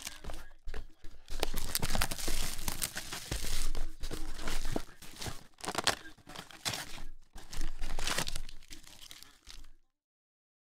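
Trading card packs and box wrap being torn open and crinkled by hand: irregular bursts of tearing and rustling plastic wrapper, ending abruptly in dead silence about a second before the end.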